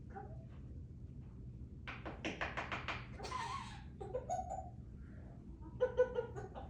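African grey parrot making a quick run of six or seven clicks about two seconds in, then a short hiss, and near the end a low, choppy vocal sound.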